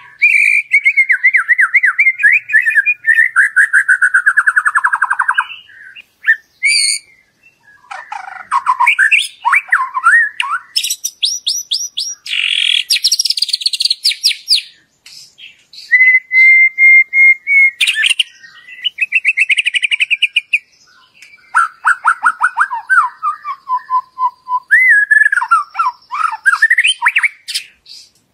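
White-rumped shama singing a long, varied song: rapid trills sliding down in pitch, high quick runs, clear held whistles and chattering phrases, with a few short pauses between bouts.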